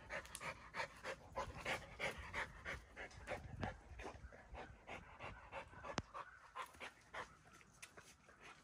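Rottweiler panting quickly, about three breaths a second, growing fainter near the end.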